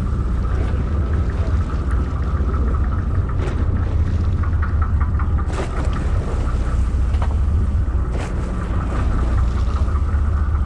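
Sportfishing boat's engine running with a steady low rumble, heard on deck, with a few faint clicks over it.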